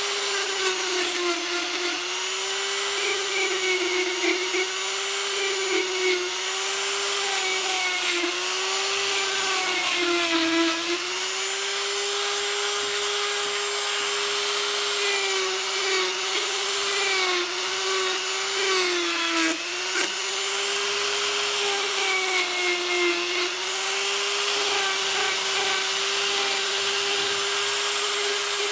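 Handheld rotary tool with a sanding drum running at high speed and grinding the rubber of a snooker table pocket cushion: a steady motor whine over a rasping sanding hiss. The whine dips in pitch now and then as the drum is pressed harder into the rubber.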